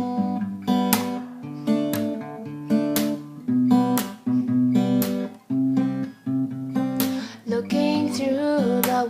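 Acoustic guitar strumming chords, about one strum a second, as the instrumental intro of a song.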